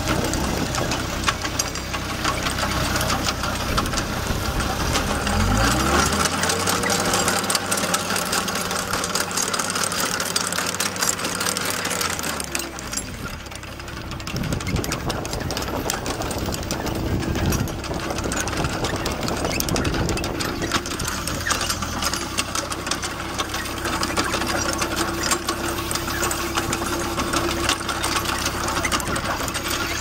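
Skid steer engine running the Bobcat LT313 trencher attachment, with a steady mechanical clatter. The engine revs up quickly about five seconds in, holds high for several seconds, then drops back to a lower steady speed.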